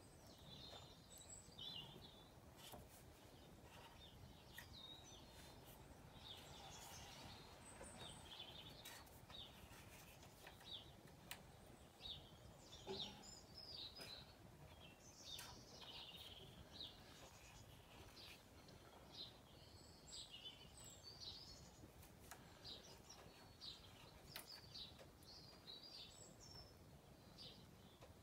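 Faint birdsong: scattered short high chirps throughout, over quiet background noise.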